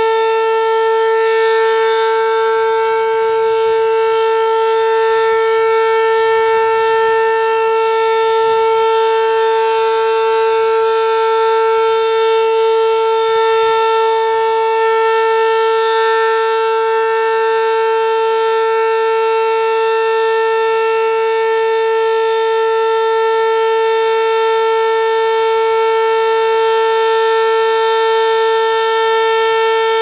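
Sterling M-10 dual-tone (8/16-port) outdoor warning siren sounding its steady alert signal at full speed, holding two tones an octave apart without rising or falling.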